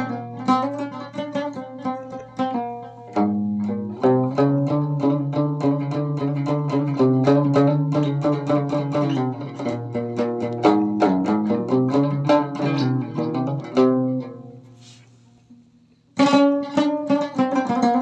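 Moroccan loutar (outar) plucked in quick runs of notes over a low sustained note. The playing fades out about fourteen seconds in and starts again about two seconds later.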